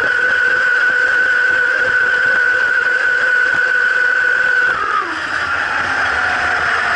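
Radio-controlled model speedboat's motor running at a steady high-pitched whine, heard from on board, then easing off about five seconds in, its pitch sliding down.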